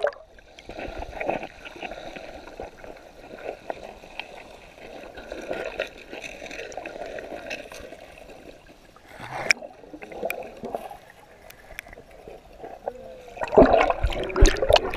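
Water sloshing and gurgling as heard by a submerged action camera among a swimming dog's paddling legs, muffled, with scattered small clicks. A brief louder splash comes about nine and a half seconds in, and louder splashing near the end.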